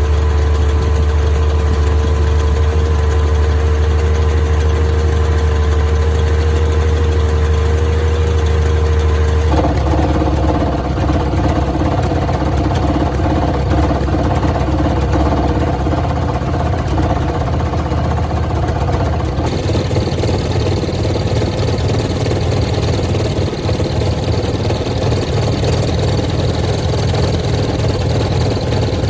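Subaru 360's air-cooled two-stroke two-cylinder engine running steadily at idle, in three recordings of about ten seconds each joined one after another, the first with a steady whining tone. The recordings show abnormal engine noises tied to the engine's faults.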